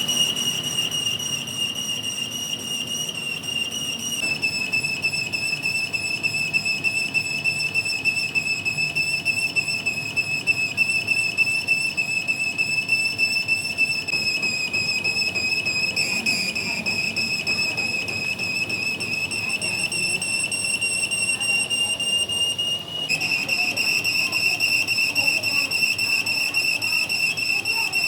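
A steady, high-pitched metallic whine with several overtones from a machine tool working steel, shifting slightly in pitch a few times.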